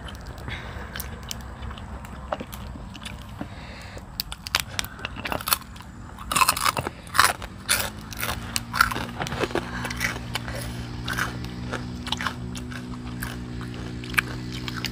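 Grilled giant prawns being cracked apart by hand and eaten: a run of sharp crackles and crunches, loudest around the middle. A steady low hum with several tones comes in about halfway through and continues.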